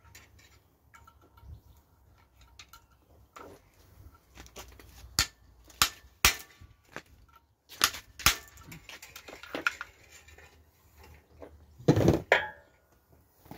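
Metal hand tools knocking and clinking on a BMW N47 diesel engine during a teardown, a sharp hit every second or two, with a louder clatter about twelve seconds in.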